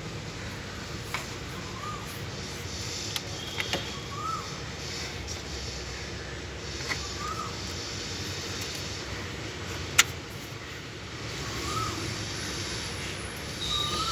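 Scattered metallic clicks and knocks from hand tools as the drive belt is taken off a BMW diesel engine that is switched off. One sharp knock about two-thirds of the way through is the loudest. A short rising-and-falling chirp recurs every few seconds over a steady background hiss.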